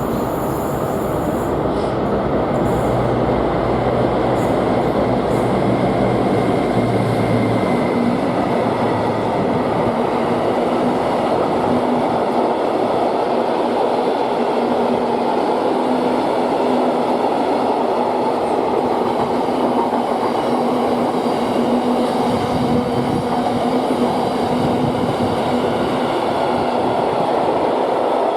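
A freight train rolling past on the rails, its wagons making a steady, continuous rumble. A low hum under the rumble fades out about eight seconds in.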